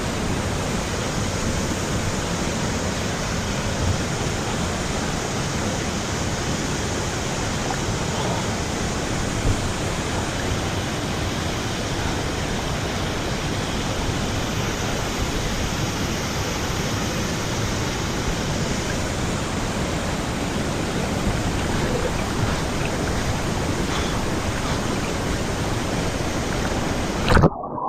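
Waterfall pouring at close range: a steady, loud rush of falling water that cuts off abruptly near the end.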